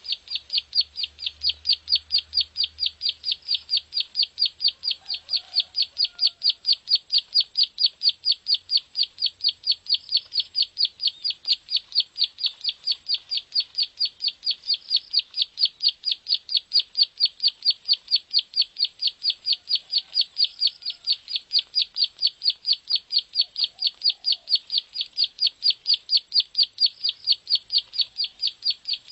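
Ciblek sawah (prenjak sawah), a small prinia, calling a long unbroken run of short, evenly spaced chirps at about four a second. This is the rapid 'ngebren' call that keepers use to train other songbirds.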